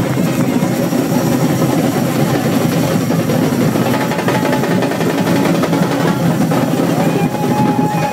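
A street drum band playing a fast, dense rhythm on many drums together, with a steady high whistle-like tone held near the end; the drumming stops abruptly at the very end.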